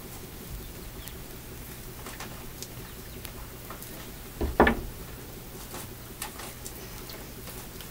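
Handling sounds from skinning a squirrel by hand: faint scrapes and clicks over a steady low hum, with a double knock about four and a half seconds in, the loudest sound.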